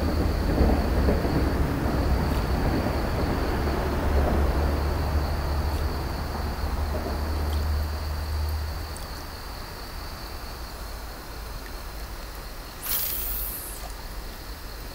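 A low rumble, like a distant vehicle, fades away about nine seconds in, over a steady high drone of night insects. Near the end comes a short sharp swish as a fishing rod is swung.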